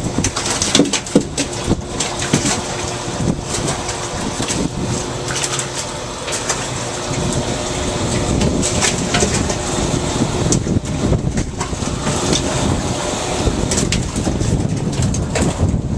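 Live bass flopping and slapping on a wet boat deck and being handled into a live well, making many irregular knocks and wet slaps over the steady running of the boat's engine.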